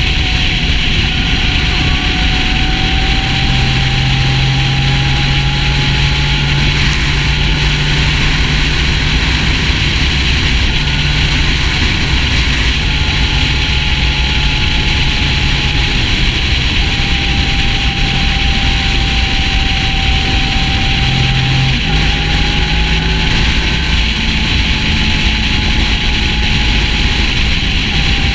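Sport motorcycle cruising at highway speed: a steady engine drone whose pitch shifts slightly a few times, under a loud, even rush of wind noise.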